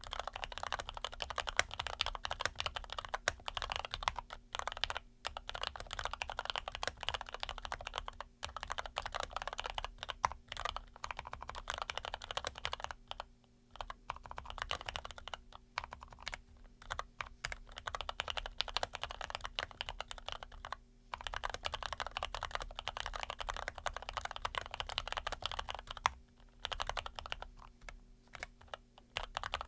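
Fast continuous typing on an ABKO AR87 mechanical keyboard with lubed Cherry MX Red linear switches, dense key clacks with a few brief pauses.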